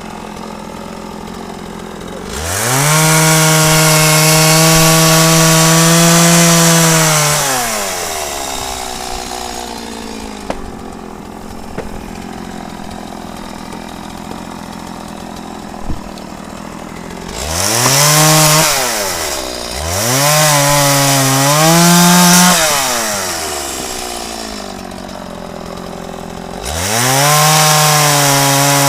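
Stihl two-stroke chainsaw revving up to full throttle and holding there, then dropping back to idle, four times. The high pitch dips and recovers in the middle bursts.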